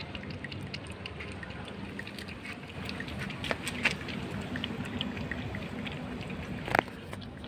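A cat lapping liquid milk from a saucer: a quick, irregular run of small wet clicks and slurps over a low steady hum, with one louder click near the end.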